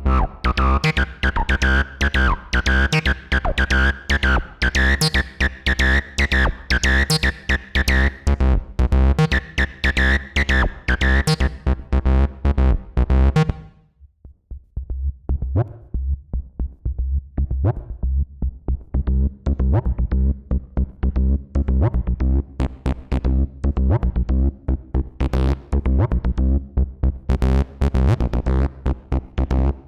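Behringer TD-3-MO playing a TB-303-style acid bassline sequence: fast, steady runs of squelchy notes through a resonant filter. The pattern cuts out about halfway through, and a new pattern with a duller, less bright tone starts a second later.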